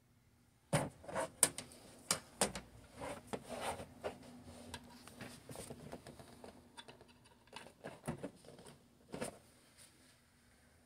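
Irregular clicks, knocks and scraping of cables being handled and plugged into the rear ports of a Beelink SER5 Pro mini PC, an Ethernet cable among them; the sharpest knocks come near the start.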